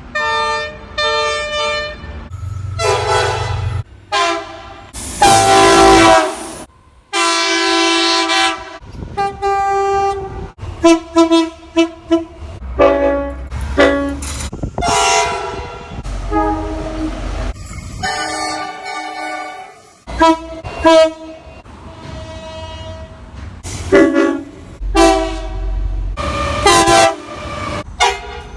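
Train horns sounding one after another in many separate blasts, some short toots and some held a second or two, each a chord of several tones sounding together. A low engine rumble runs under some of them.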